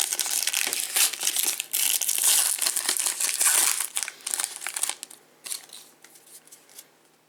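Foil wrapper of a trading-card pack crinkling as it is torn and pulled open, dying away about five seconds in.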